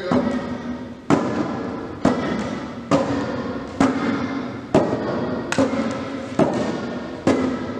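Sharp, echoing beats at a steady pace of about one a second, setting the stroke rhythm for a group paddling in unison.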